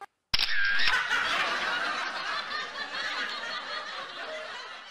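Canned crowd laughter. It starts abruptly and fades out slowly over about four seconds.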